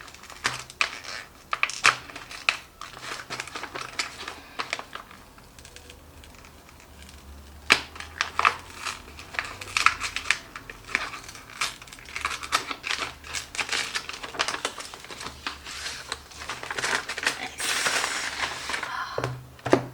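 Glued paper and cardboard packaging being peeled and pried open by hand, with irregular crinkling, crackling and tearing and a few sharp clicks. The glue seam is stiff and holds, so the opening goes slowly.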